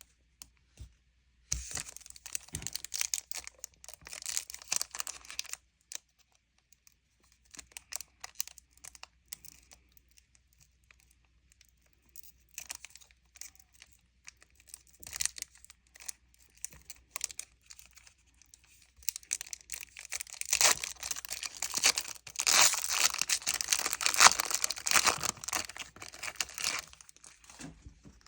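Foil booster-pack wrappers crinkling and tearing as they are handled, in bursts, with the loudest and most continuous crackling from about twenty to twenty-seven seconds in.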